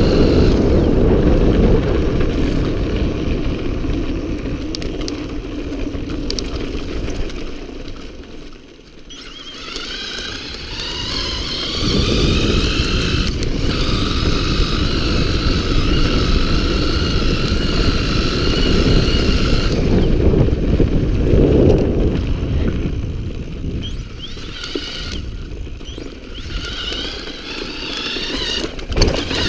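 Wind buffeting the microphone and knobby tyres rumbling over a dirt track on a moving electric bike. About ten seconds in, the motor's whine rises in pitch, holds steady until about twenty seconds, and comes back near the end.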